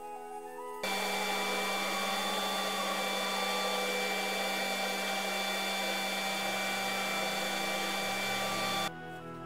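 Dust extractor and wood lathe running steadily while a spinning ash vase is sanded: a loud, even noise with a few held tones. It starts abruptly about a second in and cuts off near the end.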